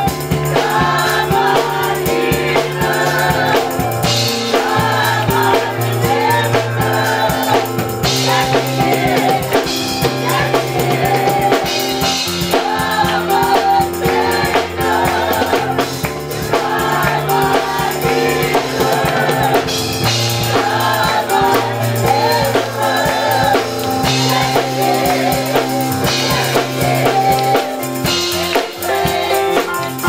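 Gospel choir singing together, many voices over an accompaniment with a bass line that moves every few seconds and drums.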